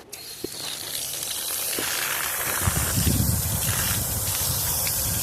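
Running water in a steady hissing spray that starts suddenly and grows louder; from about two and a half seconds in a lower rumble of water joins it.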